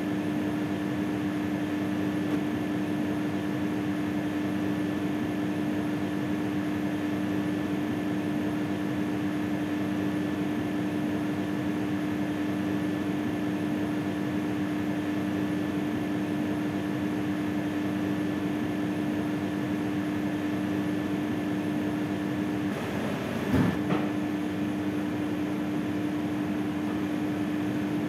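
Steady machine hum with a constant low tone and a few fainter higher tones. About 23 seconds in there is a brief handling knock.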